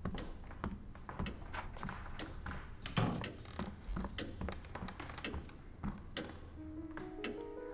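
A child's light footsteps and small knocks on a wooden floor, irregular clicks over a low room hum. Near the end piano notes begin.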